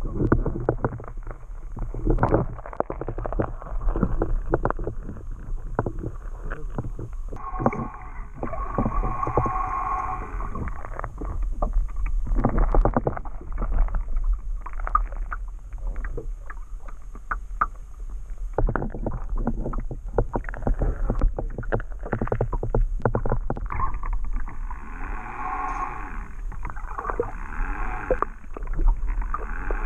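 Water slapping and knocking against a small fishing boat in irregular bursts, over a steady low rumble.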